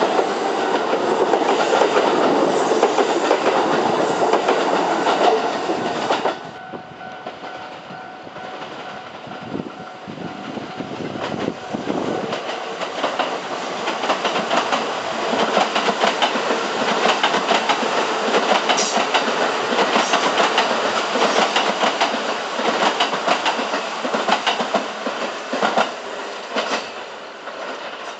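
Trains passing close by, wheels clacking over the rail joints. The first train's noise cuts off suddenly about six seconds in; after a quieter stretch a second train builds up from about twelve seconds and passes with a steady rapid clatter, easing off near the end.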